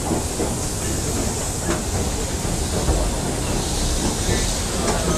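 Steady low rumble and hiss of a busy railway station as a crowd moves up an escalator to the platform, with a few scattered short knocks.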